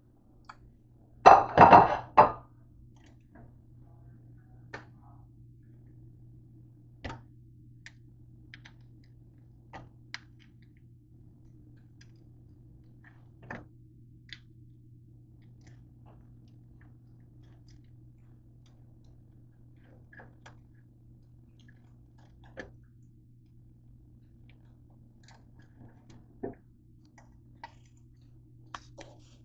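Kitchen handling noises: a loud clatter of several knocks about a second in, then scattered light knocks and clicks over a steady low hum.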